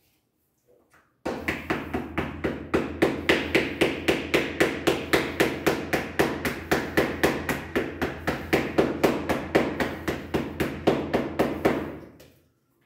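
A hammer tapping steadily on the MDF parts of an adjustable interior door frame, about three quick blows a second for some ten seconds.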